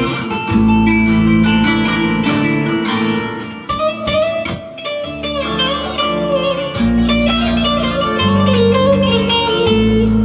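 Plucked string instruments, a bağlama (saz) and a kanun, playing a Turkish melody together over held low notes, growing softer for a moment a little before the middle.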